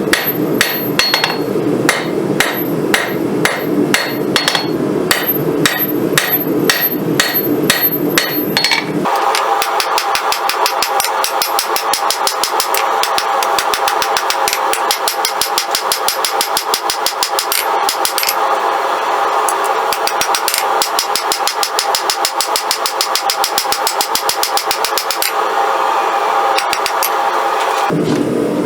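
Hammer blows forging a rail spring clip's steel on an anvil: a steady run of strikes, each with a high ring from the anvil. About nine seconds in, the blows turn much faster and denser with a thinner sound, and near the end the slower ringing strikes come back.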